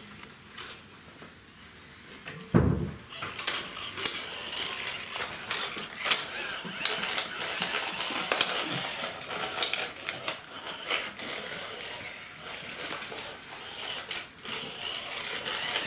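Czechoslovakian wolfdog puppies at play: a thump about two and a half seconds in, then a busy run of small clicks, scrapes and rattles.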